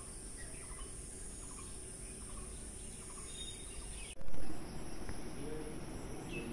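Outdoor ambience: a steady high insect buzz with faint, scattered bird chirps. About four seconds in, the sound breaks off and a short, loud, low thump follows.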